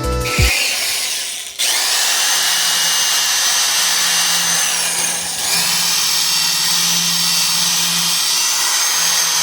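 Handheld power tool working on a steel fire poker, with a hissing scrape over a steady high whine, typical of rust being taken off. The tool dips briefly twice.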